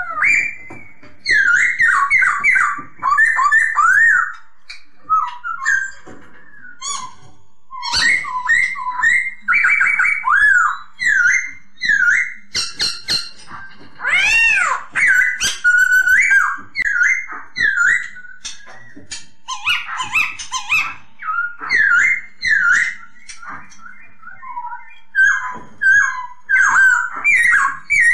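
Black-throated laughingthrush (Hong Kong poksay) singing: loud bouts of quick, clear whistled notes slurring rapidly up and down, mixed with scratchier high notes, with short pauses between phrases.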